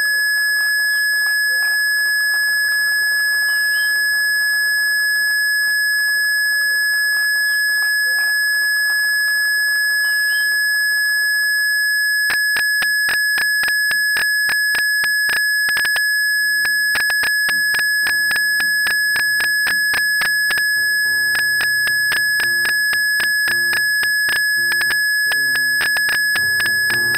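A loud, steady high-pitched tone runs throughout, over a soft noisy wash. About twelve seconds in, a Blüthner grand piano begins a tango with fast, sharp repeated notes, moving into chords over a bass line a few seconds later.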